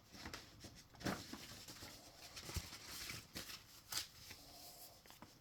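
Light handling noises of a Blu-ray special-edition box's contents: soft rustling with a few scattered clicks and knocks.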